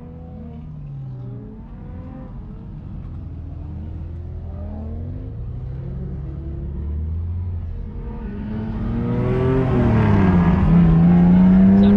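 Several car engines running and revving up and down, heard from inside a car's cabin. The sound grows louder from about eight seconds in, when one engine dips and then climbs to hold a steady high pitch.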